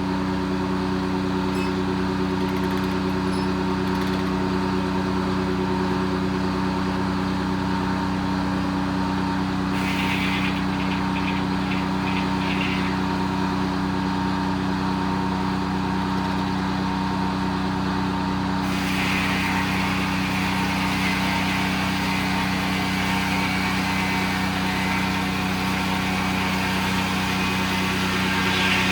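Detroit diesel engine driving a circle sawmill, running steadily at constant speed. About two-thirds through, a higher hiss joins it.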